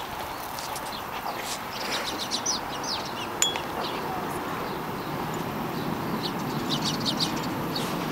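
Small birds chirping in short clusters over a steady outdoor background noise, with a single sharp click partway through.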